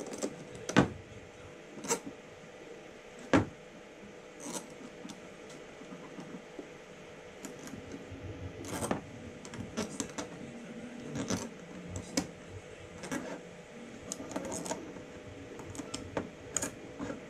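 Small clicks and ticks of tiny metal parts being handled: a pin being fitted into a small plastic block with miniature ball bearings. The clicks come irregularly, with a few sharper ones in the first few seconds and a busier run in the second half, over a faint steady hum.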